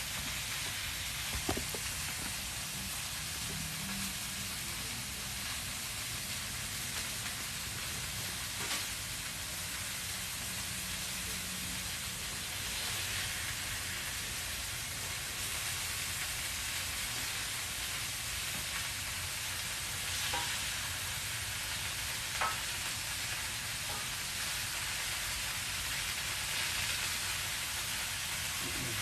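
Food sizzling steadily on a small portable flat-top griddle, with a few faint clicks here and there.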